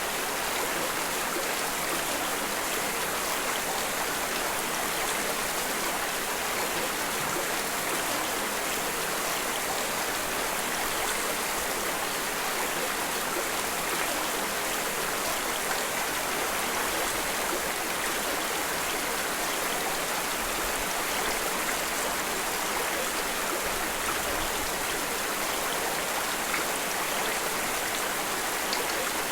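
Steady rain together with running water, making an even hiss that does not change.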